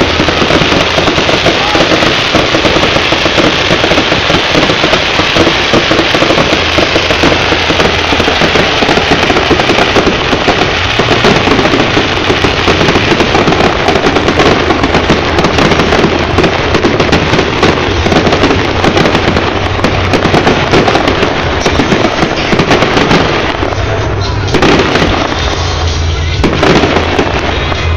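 Fireworks barrage, likely the grand finale: a dense, continuous run of shell bursts and crackling, thinning out a few seconds before the end.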